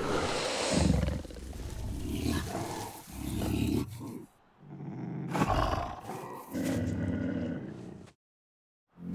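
Pyroraptor dinosaur calls, a designed creature sound built largely from big-cat growls: a run of growls and roars in several phrases, with a brief break about four seconds in.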